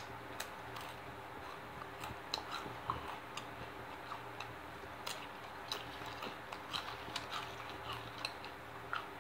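Close-up eating of spicy Doritos tortilla chips: irregular sharp crunches as chips are bitten and chewed, over a faint steady hum.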